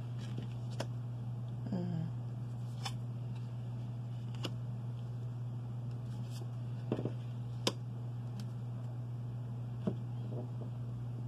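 Tarot cards being dealt onto a cloth-covered table: a handful of light, separate taps and flicks as each card is laid down, over a steady low hum.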